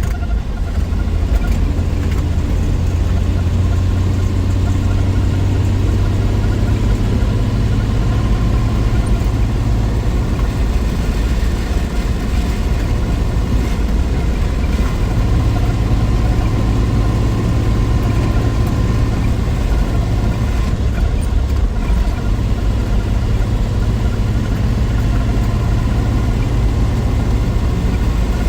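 1963 Willys Wagon's 230 Tornado overhead-cam straight-six engine running steadily. Its low hum eases off about eleven seconds in and picks back up a few seconds later.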